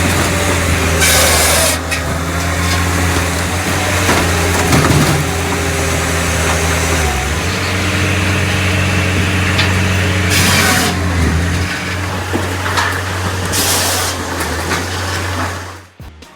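Firewood processor's engine running steadily, with three short hisses about a second in, around ten seconds and around fourteen seconds.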